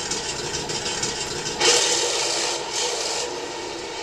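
RC tank's ASP sound unit playing its engine sound through a small speaker, a raspy, noisy run that swells in two louder bursts about halfway through.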